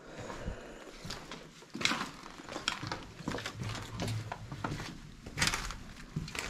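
Footsteps on a floor strewn with rubble and burnt debris: irregular crunches and scrapes of loose fragments underfoot.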